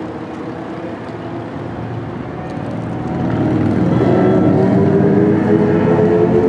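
NJ Transit commuter train approaching, its steady pitched drone growing louder from about three seconds in.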